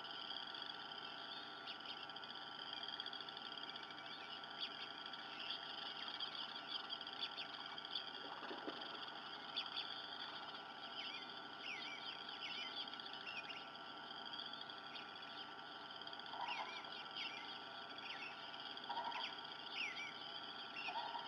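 Frog chorus trilling steadily, with many short high chirps scattered over it and a few short lower calls in the last few seconds.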